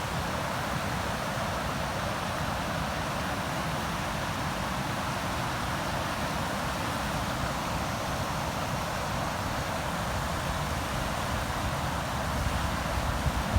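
River water rushing, a steady, even noise without breaks. Near the end, low gusts of wind start to buffet the microphone.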